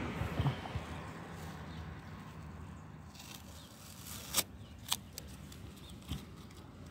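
A road vehicle's rumble fading away as it passes, followed by a few sharp clicks, two of them about half a second apart in the middle.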